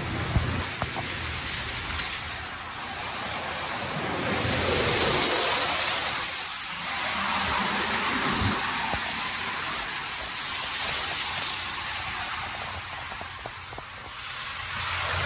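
Mark VII SoftTouch XT in-bay automatic car wash running: spinning foam-cloth brushes scrubbing a car amid spraying, splashing water, a steady rushing hiss that swells louder about four to six seconds in.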